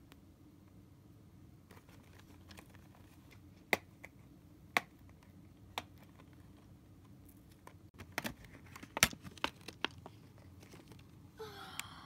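Clear plastic highlighter case being handled and pried at. Three sharp plastic clicks come about a second apart, then a quicker run of clicks and crinkles about two-thirds of the way in.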